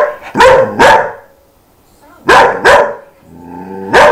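A chihuahua barking sharply, in two quick runs of barks. Near the end a lower, drawn-out sound leads into one last bark.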